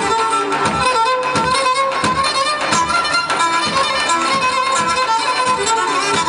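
Live Pontic folk dance music: a Pontic lyra (kemenche) plays a quick bowed melody over the steady beat of a daouli bass drum.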